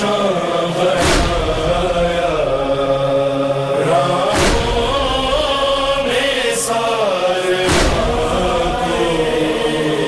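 A group of men's voices chanting a noha, a Shia mourning lament, in unison with long-held notes. A low thump cuts through three times, about three seconds apart.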